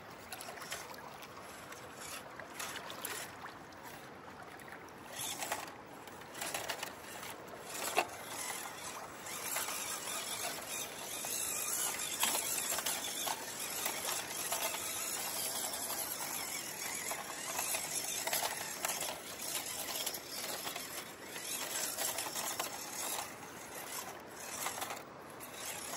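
WPL C24 1/16-scale RC crawler truck driving over rough ground: its small electric motor and gearbox whine, louder through the middle stretch, with scattered clicks and knocks.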